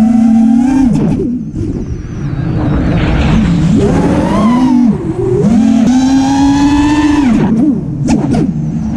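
FPV quadcopter's brushless motors whining, the pitch rising and falling with the throttle and dropping away sharply a few times as the throttle is cut, then swelling back.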